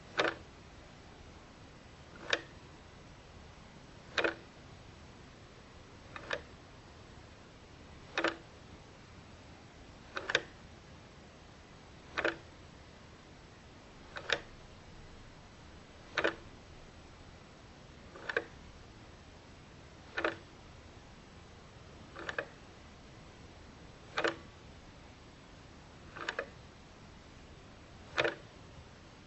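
A clock ticking slowly and evenly, one sharp tick about every two seconds, some of them heard as a quick double click, over a faint steady hiss.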